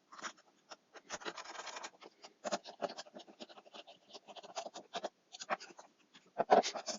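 Flat-pack box panels and small hardware being handled and fitted together by hand: a run of small clicks and taps, with a longer scrape about a second in and a sharper knock near the end.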